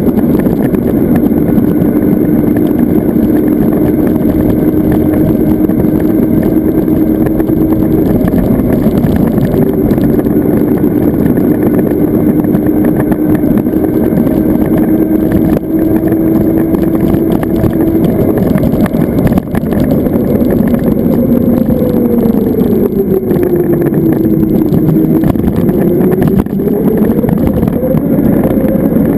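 Zero FX electric motorcycle on the move: a steady rushing noise with the electric drive's whine over it. The whine holds one pitch for most of the ride, then sinks and climbs again in the last several seconds as the bike slows and picks up speed.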